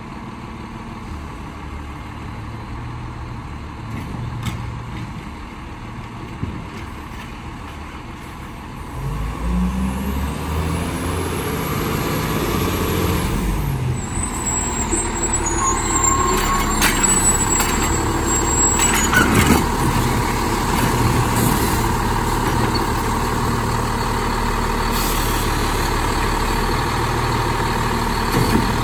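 A 2009 Autocar Autoreach automated side-loader garbage truck's diesel engine grows much louder as the truck pulls up close, about a third of the way in. Its air brakes hiss a few times, and a steady whine runs under the engine while the automated arm reaches out and lifts the cart near the end.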